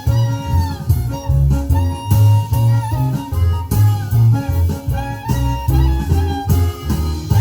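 Instrumental music with a moving bass line and a melody on top, played from a compact disc on a Philips CD614 CD player.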